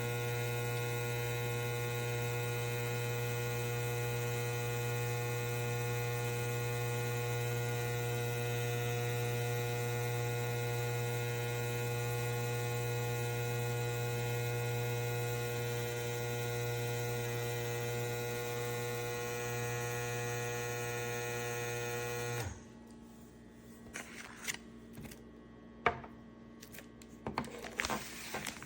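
Small electric vacuum pump motor of a vacuum sealer running with a steady, even hum, which stops abruptly about three-quarters of the way through. A few faint clicks and handling rustles follow.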